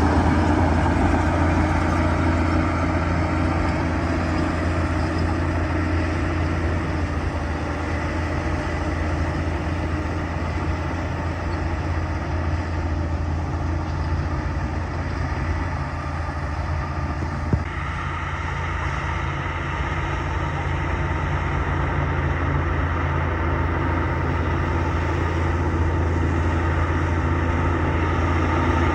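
Bulldozer's diesel engine running steadily with a deep, even hum.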